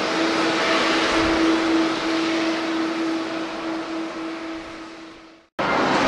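Jet airliner's engines running as it rolls along the runway: a steady rushing noise with a held hum. It fades out and cuts off about five and a half seconds in, and a different steady outdoor background noise starts.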